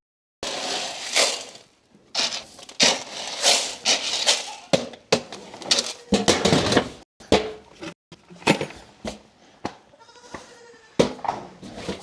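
Goats bleating a few times over repeated rustling and scraping of grain being scooped and stirred in a feed can.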